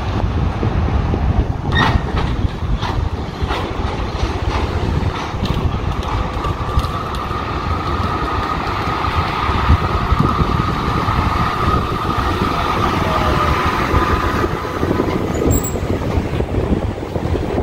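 A Melbourne B2-class articulated tram running along the rails and pulling into the stop. A few sharp clicks come early on, then a steady high-pitched whine lasts for several seconds in the middle, over a low rumble.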